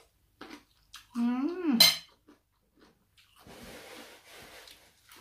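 A short closed-mouth hum of enjoyment about a second in, its pitch rising then falling and ending in a lip smack. Then soft, uneven crunching as crisp raw salad vegetables are chewed.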